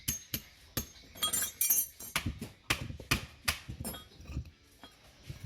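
Metal tools and parts clinking and tapping against each other in a quick, irregular series of sharp strikes, most of them in the first four seconds.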